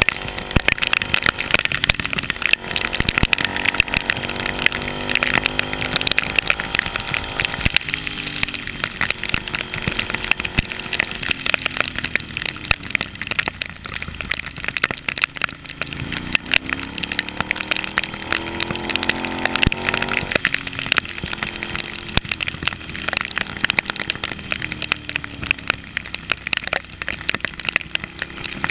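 Heavy rain spattering on the camera as dense, rapid ticking, over a Ducati Hypermotard's L-twin engine running under way. The engine's pitch drops about eight seconds in, climbs again around sixteen seconds, then falls back a few seconds later.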